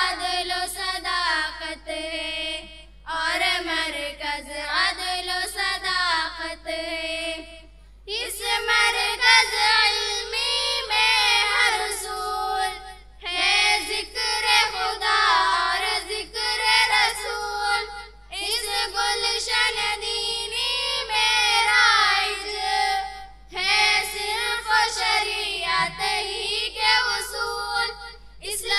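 A small group of girls singing the school tarana (anthem) into a microphone, unaccompanied, in sung phrases of about five seconds with short breaks between them.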